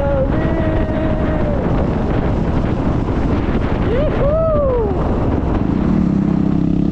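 Wind buffeting the microphone while riding a WR250 supermoto motorcycle, with the engine running underneath and its pitch rising and falling a few times. Near the end the engine settles into a steady, lower note as the bike slows.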